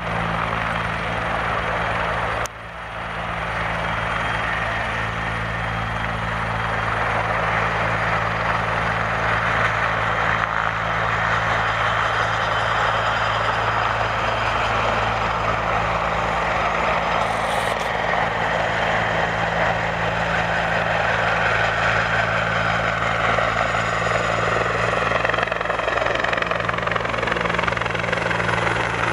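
Bell 412 helicopter running steadily, with a low rotor drone under a loud turbine hiss. There is a brief dip about two and a half seconds in.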